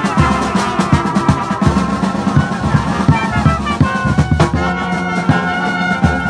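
Brass band playing a tune with a steady drum beat under the horns.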